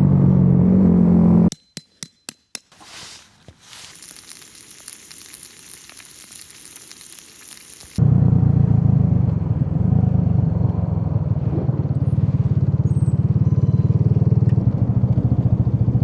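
Yamaha YB-1 motorcycle engine idling with an even putter, cut off suddenly after about a second and a half. Then come four sharp clicks, a few seconds of faint sizzling hiss, and from about halfway the engine idling again, loud and steady.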